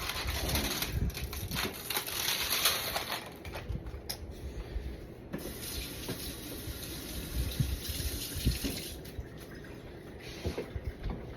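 Water running from a tap into a sink, in two spells with a short lull between them.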